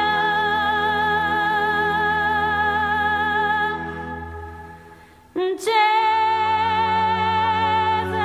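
Women's voices singing long held notes in close harmony over a low drone, in the Bulgarian folk style. The chord fades out about four to five seconds in, and a new one comes in with a quick upward slide and is held.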